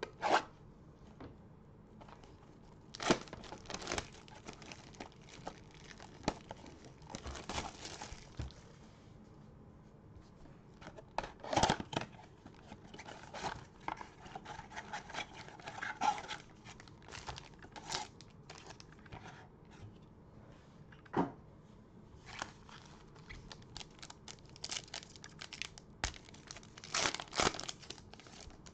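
Cardboard trading-card blaster box slit open with a box cutter and its packs handled, then a foil card pack torn open: irregular crinkling, tearing and light clicks and knocks.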